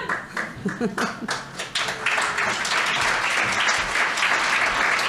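Audience applause: a few scattered claps at first, swelling about two seconds in into full, steady clapping from the room.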